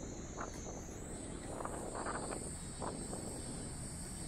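Outdoor ambience: a low, steady rumble with a thin, steady high-pitched drone above it and a few soft, irregular swells.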